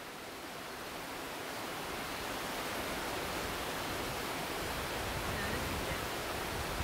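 Steady rushing water noise as a plastic water jug is held under the surface of a spring-fed creek to fill. It grows a little louder over the first two seconds, then holds even.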